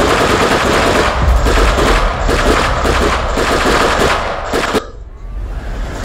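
Automatic gunfire sound effect: rapid bursts of machine-gun shots for about five seconds, cutting off suddenly, after which quieter background music is left.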